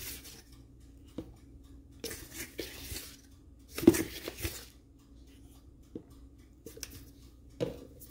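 Measuring spoon scooping cornstarch and tipping it onto raw beef in a stainless steel bowl: scattered soft scrapes and rustles, with one sharp tap about four seconds in.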